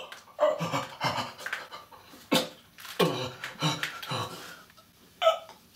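A man gagging and retching over and over in short, wet heaves about every half second, acted for a comedy sketch. One heave about two and a half seconds in is the sharpest; they trail off near the end before one last heave.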